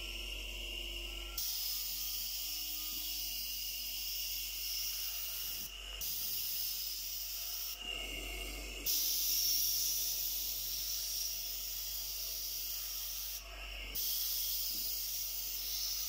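Compressed air hissing from a refrigerator compressor converted into an airbrush compressor, over the low hum of the running compressor. The hiss swells about a second in and breaks off briefly three times.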